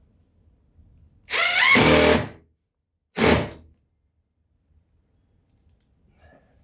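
Power drill driving a screw into the subfloor: a burst of about a second with the motor's pitch rising as it spins up, then a shorter second burst.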